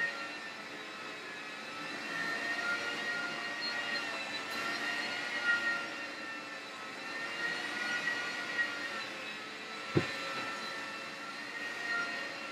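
Hoover floor scrubber running, a steady motor whine whose pitch wavers slightly as it works the floor. A single sharp knock about ten seconds in.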